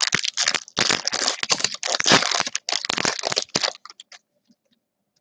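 Foil wrapper of a Topps Chrome baseball card pack being torn open and crumpled: a dense run of crackling and crinkling that stops suddenly about four seconds in.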